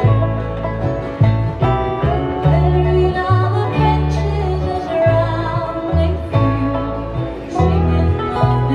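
A string band playing a bluegrass-style tune, with plucked strings over a low bass line that steps from note to note.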